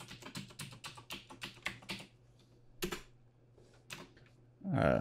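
Computer keyboard typing: a quick run of keystrokes as a password is entered for about two seconds, then two single clicks about a second apart.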